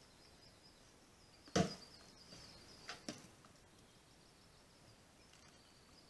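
Knocks from a bear handling a plastic bait barrel: one sharp thud about one and a half seconds in, then two softer knocks a little over a second later.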